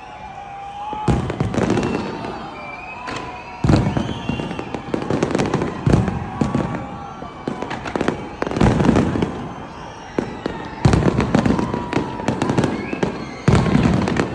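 Fireworks display: a series of sharp bangs from bursting shells, about every two to three seconds, each followed by a dense crackle.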